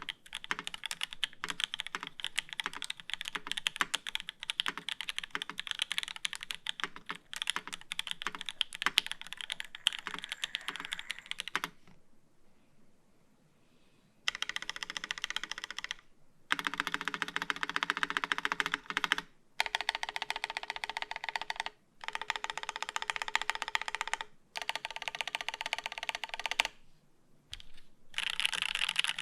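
Typing on a UTD 360c mechanical keyboard with lubed H1 switches on an aluminium plate and GMK keycaps. A dense run of key clacks lasts about twelve seconds, then stops briefly. Several bursts of very fast clacking follow, each a few seconds long with short gaps between them.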